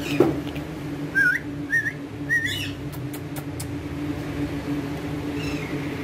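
Indian ringneck (rose-ringed) parakeet giving three short wavering chirps in quick succession, a few light clicks, and one short falling whistle near the end. A sharp knock comes just after the start, and a steady low hum runs underneath.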